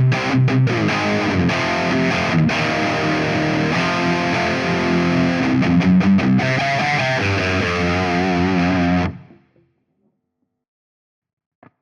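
High-gain distorted electric guitar played through an EVH 5150 III-style amp simulation: a riff of tight, chopped chugs, then held notes with wavering vibrato, cutting off about nine seconds in.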